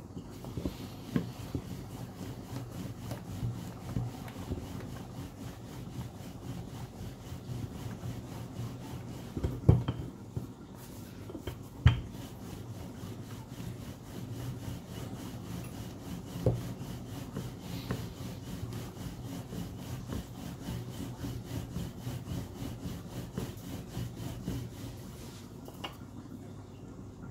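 Wooden rolling pin rolling fresh noodle dough back and forth on a floured countertop: a steady rubbing, broken by a few sharp knocks, the loudest about ten and twelve seconds in.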